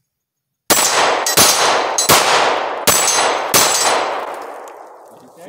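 Five handgun shots fired in quick succession, about 0.7 seconds apart, starting just under a second in. Each shot echoes off the surrounding woods, and the echo of the last dies away over about two seconds.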